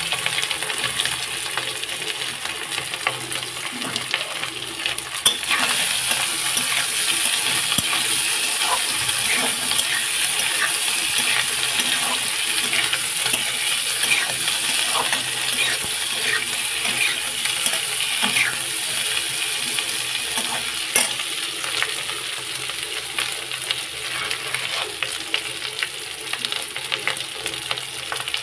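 Boiled potatoes frying in oil in a metal kadhai, sizzling steadily, with a metal spatula scraping and clinking against the pan now and then as they are stirred.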